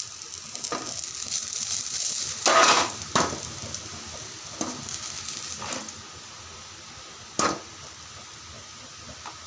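Small onions (shallots) sizzling in hot oil in a pan while a metal spoon scoops them out, with a few loud knocks of the spoon against the pan, the loudest about two and a half seconds in. The sizzle dies down from about six seconds in as the pan empties.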